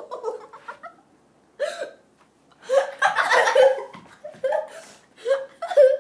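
Two boys laughing in short, separate bursts with hiccup-like catches of breath.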